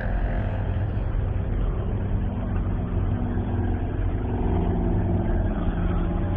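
Low, steady rumbling drone of dark ambient background music, with held low notes coming in about two-thirds of the way through.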